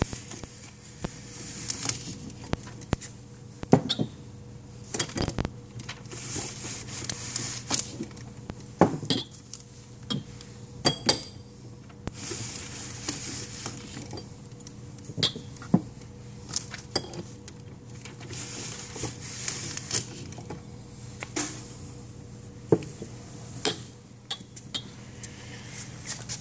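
Manual label applicator in use on tapered glass candle jars: irregular sharp clicks and glass clinks as jars and metal rollers knock together, with soft hissing rustles a second or two long every few seconds, over a faint steady hum.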